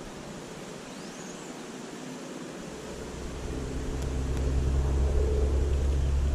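Wind buffeting the microphone: a low rumble that builds up about halfway through and stays loud.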